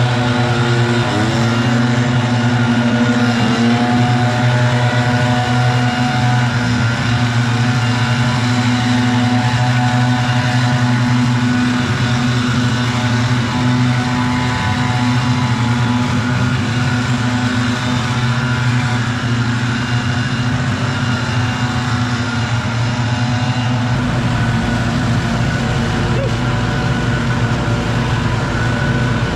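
Several gas backpack leaf blowers running together at high throttle, with a steady engine drone and a few brief pitch changes early on as one is throttled. About three-quarters of the way through the sound shifts and a deeper low rumble joins in.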